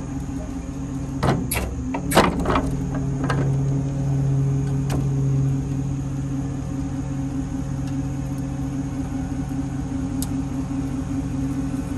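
Hydraulic packer of a Wayne Pup rear-loader garbage body cycling, driven off the idling truck's PTO pump. There is a steady hum with metal clanks from the blade and linkage about one and a half to two and a half seconds in and again about five seconds in, and the hum swells in between as the pump takes the load. The hydraulics run at reduced pressure until worn hoses are replaced.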